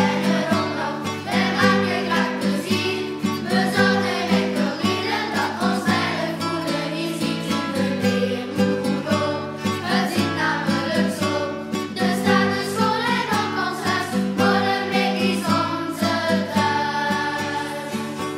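A song: singing voices over a plucked guitar accompaniment, with sustained chords underneath.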